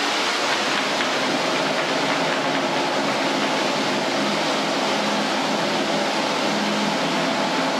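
Waterfall pouring steadily, a constant rushing noise.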